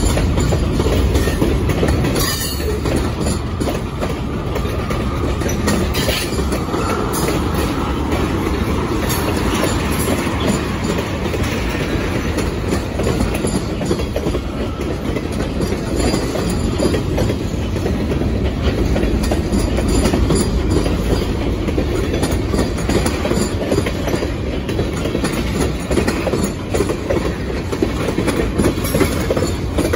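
Freight train cars, covered hoppers and tank cars, rolling steadily past at close range: a continuous rumble of steel wheels on the rails, with scattered clacks as the wheels cross rail joints.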